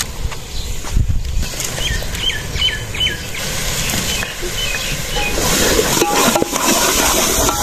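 Birds chirping several times about two to three seconds in, then from about five seconds a hissing sizzle as a steel ladle stirs tomato masala in a pot over a wood fire.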